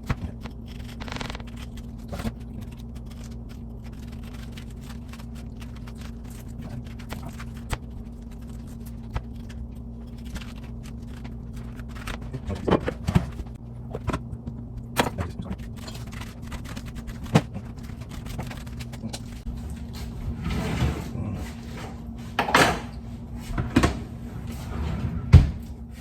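Knife carving a pineapple on a cutting board: scattered clicks and thunks of the blade against the fruit and board, busier and louder in the second half, over a steady low hum.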